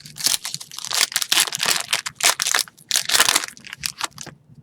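Foil wrapper of an Upper Deck Series 1 hockey card pack crinkling and tearing as it is opened by hand, in a run of loud crackling bursts that stop near the end.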